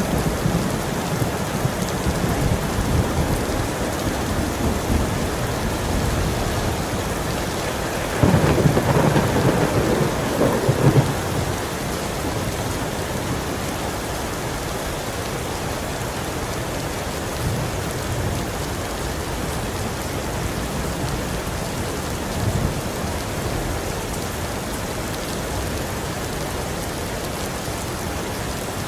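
Heavy rain falling steadily, with rolls of thunder: a loud crack and rumble about a third of the way in lasting a few seconds, and fainter low rumbles before and after.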